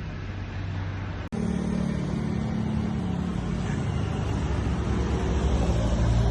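A motor running steadily with a low hum, briefly cut off about a second in.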